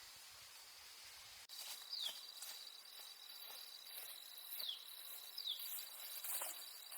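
Faint outdoor ambience of insects giving a steady high-pitched drone. After a sudden change about a second and a half in, there are light rustling clicks and three short falling bird chirps.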